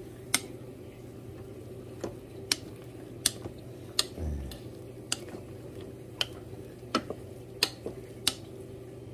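Wooden spatula stirring cooked soybeans in an electric rice cooker's inner pot, knocking sharply against the pot about ten times at irregular intervals. There is a dull thump about four seconds in and a steady low hum underneath.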